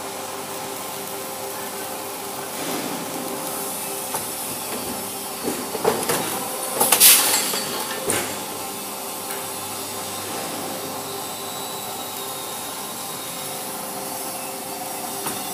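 Automatic chain-making machines running: a steady mechanical din with a few held tones. Between about six and eight seconds in there is a cluster of sharp knocks, the loudest a brief hissing burst.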